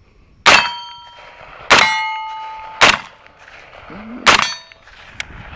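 HK G36C 5.56 mm rifle firing four single shots about a second apart. The first two shots are followed by a ringing clang of hit steel targets.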